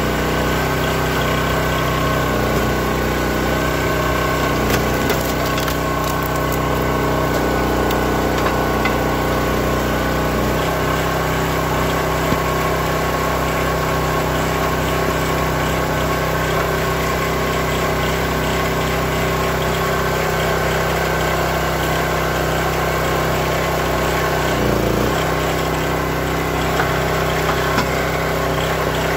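Gas engine of a hydraulic log splitter running steadily while a large round is being split. Its note shifts slightly about a third of the way in and dips briefly near the end.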